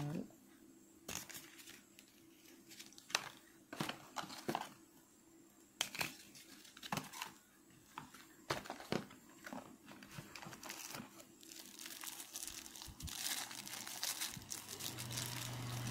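Paper leaflets, a cardboard box and plastic packaging being handled during an unboxing: scattered short rustles and taps, growing into a denser rustle in the last few seconds.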